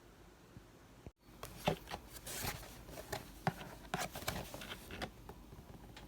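Handling noises from a hair-dye kit's box and its contents: irregular rustling, scraping and light clicks of packaging and small items being opened and moved about for several seconds, starting about a second in.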